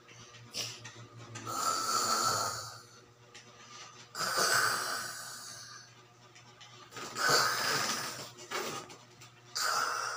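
Loud raspy snore-like breaths, four of them, each about a second long and a couple of seconds apart.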